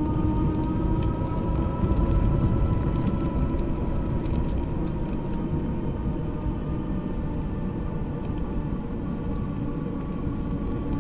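Steady rumble of wind and road noise from a vehicle moving along a paved path, with a steady whine that drifts slowly up and down in pitch.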